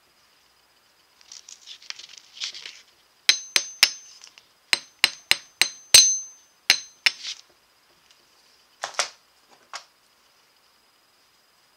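Hammer taps on a small steel jewelry anvil: after some handling rustle, about ten sharp strikes in two quick groups, each with a brief high metallic ring, then two softer knocks near the end.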